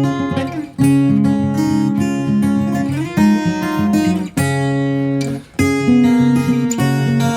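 Acoustic guitar music: strummed chords, changing about once a second.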